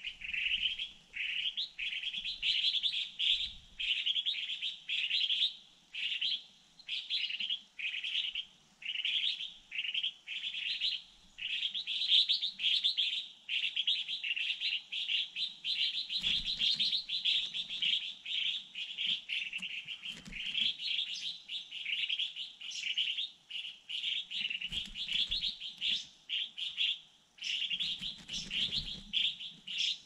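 Small songbird chirping, short high calls repeated about twice a second in a steady run.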